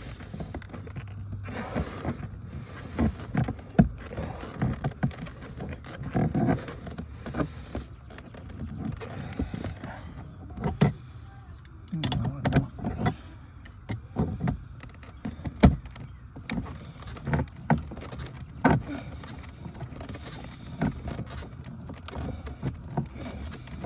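Slip-joint pliers working a drilled-out brass fitting loose from the threaded spout of an outdoor hose bib: irregular metallic clicks and knocks as the jaws grip, turn and reset on the metal.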